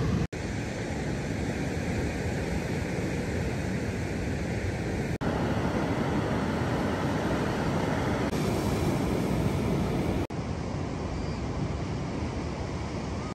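Steady rushing of wind and surf on the microphone, broken three times by brief sudden gaps.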